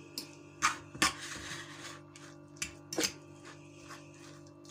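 Metal fork stirring a crumbly cottage cheese and egg filling in an enamel bowl: irregular sharp clicks of the fork against the bowl, with a short scraping stretch about a second in.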